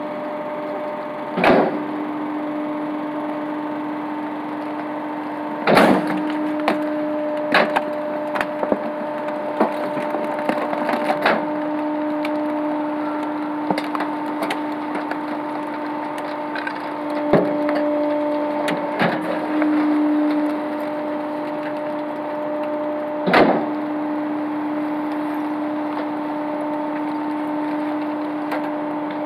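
Rear-loader garbage truck compacting cushions and household junk: a steady droning hum from the truck's packer machinery, broken by sharp cracks and snaps as things in the hopper break, the loudest about 6 and 23 seconds in.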